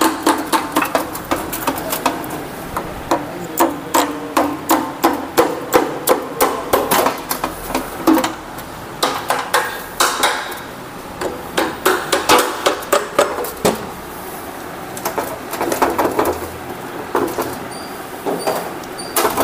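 Repeated sharp hammer knocks on the magneto-side cover of a Hero Passion Pro BS6 motorcycle engine, knocking it loose because it is stuck tight on its first removal. The knocks come in quick runs of several a second, with a couple of brief pauses.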